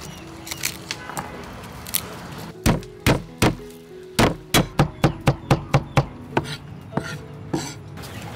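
Knife chopping garlic cloves on a round wooden chopping board: about a dozen sharp chops starting a few seconds in, quickening in the middle, then slowing.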